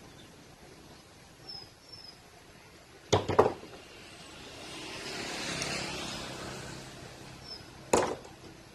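Sharp clicks of hand cutting pliers snapping shut on stranded copper wire: a quick pair about three seconds in and one more near the end. Between them a rush of background noise swells and fades.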